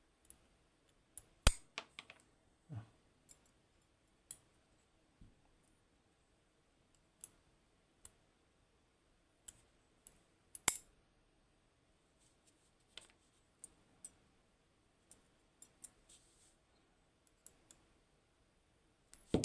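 Sparse light clicks and taps from the small pins and parts of a disassembled Assa 600 lock being handled, with two sharper clicks, one about one and a half seconds in and one near the middle.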